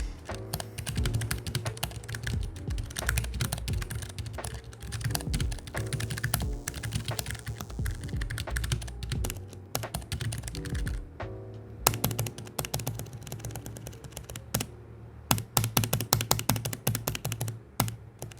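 Typing on a Keychron K3 V2 low-profile mechanical keyboard with brown tactile switches: rapid runs of key clicks with a couple of brief pauses.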